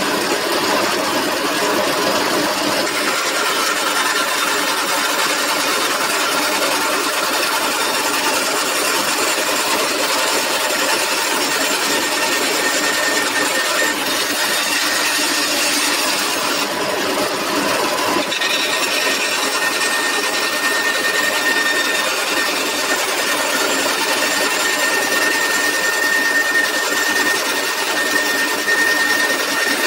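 Bandsaw running and ripping a wooden board lengthwise: a steady, loud cutting noise, with a thin steady whine coming in about halfway through.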